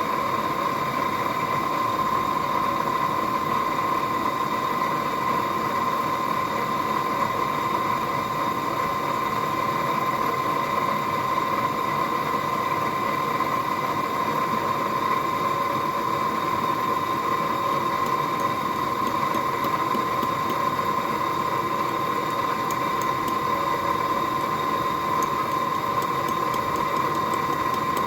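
Forge running: a steady rushing noise with a constant whine, as from the forge's blower or burner while the steel heats. A few faint ticks come near the end.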